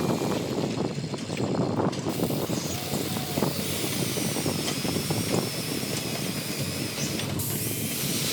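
Radio-controlled model excavator working in soil: a steady, dense crackling grind of tracks and digging in dirt with many small irregular clicks.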